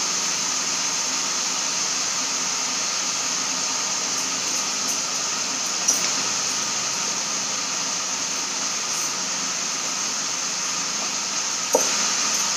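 Vegetables frying in oil in a wok on a gas stove: a steady sizzling hiss, with two light knocks, one about halfway and one near the end.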